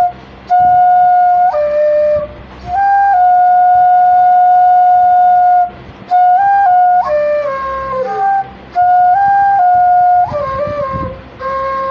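Background music: a solo flute playing a slow melody of long held notes with small ornaments, pausing briefly for breath every few seconds.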